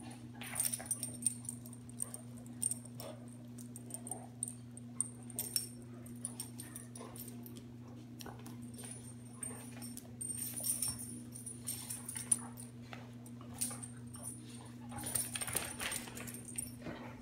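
Two dogs play-fighting on a rug: scuffling and collar tags jingling in irregular flurries, busiest about a second in, around ten seconds and near the end, with the odd short dog vocalization, over a steady low hum.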